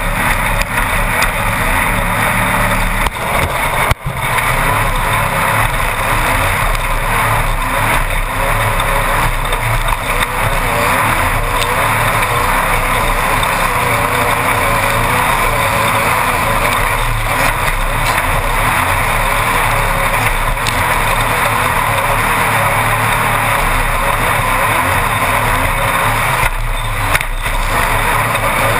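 Class 1-1600 off-road race buggy running at speed, heard from inside the cockpit as a loud, steady engine and road din. There is a sharp knock about four seconds in.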